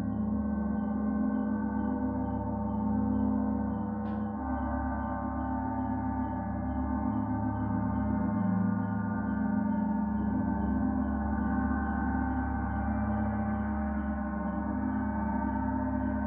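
Gong rolled continuously into a dense, sustained drone of many overlapping ringing tones at an even level. Behind it, cicadas chirp faintly and regularly, about three pulses a second. A single brief tick comes about four seconds in.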